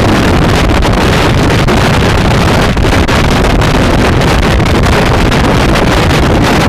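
Loud wind noise buffeting the microphone of a moving Kymco Xciting 400i maxi-scooter, a steady rushing roar that drowns out the engine.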